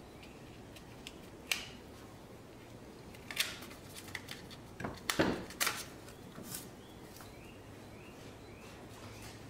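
Hands working the rubber vacuum hose at a truck's brake booster: a few short clicks and scrapes, the loudest cluster about five seconds in.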